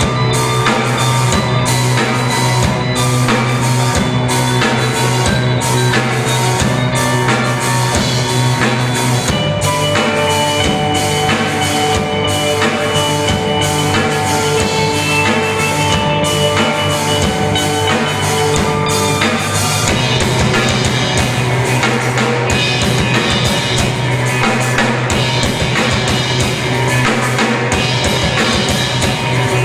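A rock band playing a song, with a drum kit keeping a steady beat under guitars.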